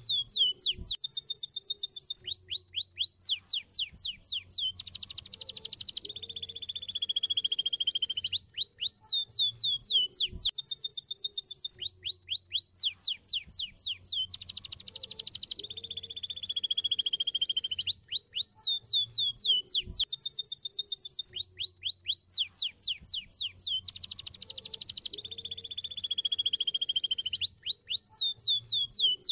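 Domestic canary singing: fast trills of repeated down-sweeping notes alternating with long, slowly falling whistled phrases, the same song sequence coming round about every ten seconds.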